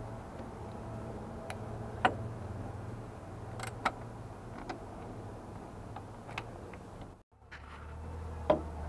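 Scattered light clicks and taps of hands and tools working on a car's driveshaft and CV joint from underneath, over a steady low hum. The sound drops out briefly about seven seconds in.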